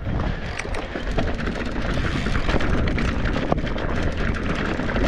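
Mountain bike rolling down a dirt and rock trail: the tyres crunch over gravel and the bike rattles with frequent small clicks. Under it is a steady low rumble of wind on the microphone.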